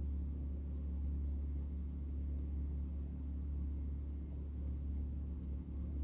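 Steady low hum with no change in pitch.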